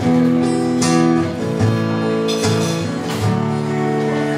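Music led by strummed acoustic guitar, held chords changing about once a second.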